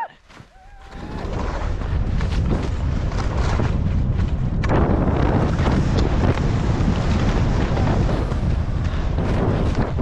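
Wind rushing over the camera's microphone, building over the first two seconds as the skier picks up speed and then holding steady and loud, mixed with the skis running through soft spring powder.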